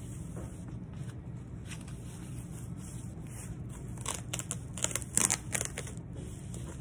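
Tissue-paper stuffing rustling and crinkling as it is handled and pulled from a new handbag, with a burst of louder crackles about four to six seconds in, over a steady low hum.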